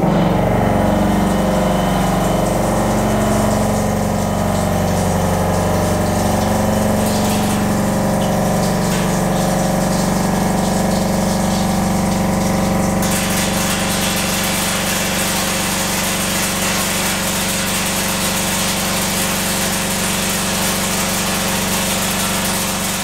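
Helical milling cutter cutting metal on a machine tool: a steady, loud machining sound with a strong low hum, which turns brighter and hissier about halfway through.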